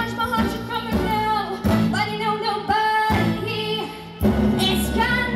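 A young girl singing a show tune live into a handheld microphone through a stage PA, holding long notes over instrumental accompaniment.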